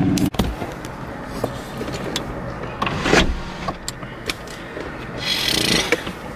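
Clicks and knocks of handling inside a car, with a heavier thump about three seconds in and a short rustle near the end.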